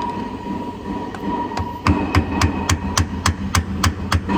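Light metal-on-metal tapping at the steering arm joint of a DAF CF85 truck, as the folded-over tab washer on the joint's nut is worked loose. The tapping sets in about two seconds in and runs in a quick steady rhythm of about three to four knocks a second, over a steady hum and a thin high whine.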